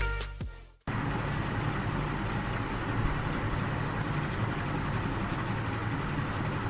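Intro music fading out over the first second, then a steady hiss with a low hum: the background noise of the listening-test recording before the narration starts.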